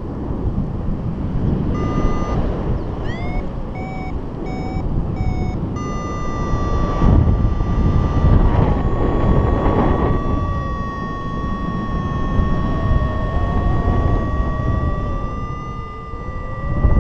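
Paragliding variometer sounding over wind rushing across the microphone: a short tone, then a quick run of short beeps, then from about six seconds in a continuous electronic tone that holds to the end.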